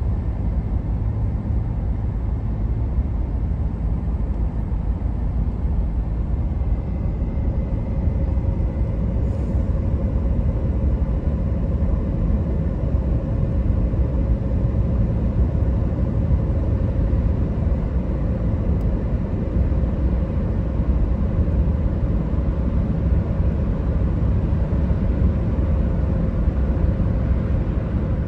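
Steady low road rumble of a car driving through a road tunnel, heard from inside the cabin: tyre and engine noise, with a faint steady hum that comes in about eight seconds in.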